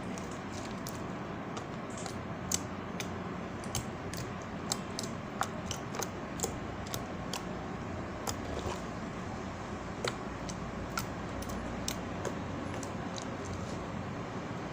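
Homemade slime made from styrofoam glue, shampoo, boric acid water and baking soda being stretched and squeezed by hand, giving off irregular small clicks and pops, a few a second, over a steady hiss.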